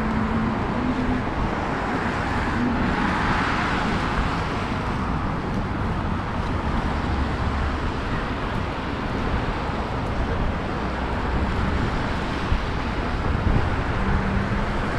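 City street traffic: a steady wash of cars driving past, with one vehicle passing a little louder about three seconds in.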